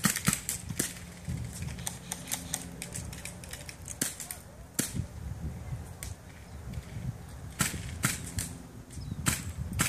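Skirmish-game guns firing in scattered sharp pops: a quick string of shots at the start, single shots in the middle, and more strings near the end.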